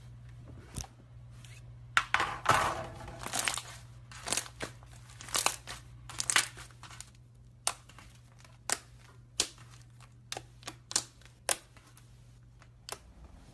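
Slime being squeezed and pressed by hand: a crackly, crinkling squish about two seconds in, then a string of short sharp pops and clicks, roughly one a second, as air pockets in the slime burst.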